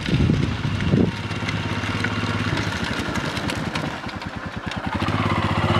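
Royal Enfield Himalayan's 411 cc single-cylinder engine running at low revs as the motorcycle rides slowly along a dirt track, getting louder near the end as it comes closer.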